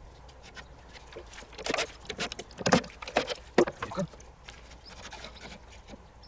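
Old wooden wall boards of a shed knocking and scraping as they are gripped and worked by hand, with a cluster of sharp knocks in the middle of the stretch.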